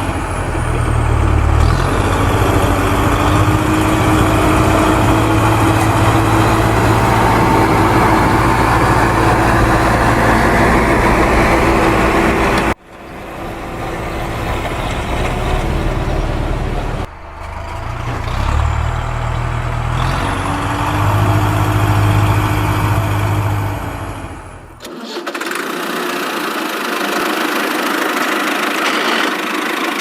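Engine sound of a JCB-style backhoe loader running steadily with a deep low rumble. It is spliced together in pieces that break off abruptly three times, and after the last cut the sound goes on thinner, without the low rumble.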